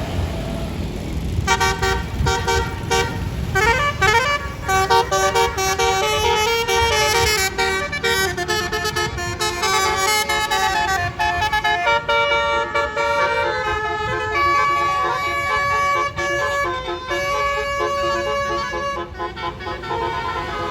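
A bus's basuri horn, a multi-note 'telolet' air horn, playing a long melody of stepped notes that starts about a second and a half in and runs on, over the low running of engines and traffic.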